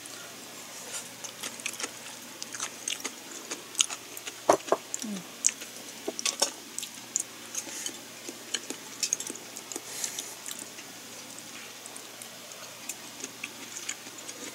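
A person chewing food close to the microphone, with many irregular wet mouth clicks and smacks, busiest in the first ten seconds, and one louder knock about four and a half seconds in.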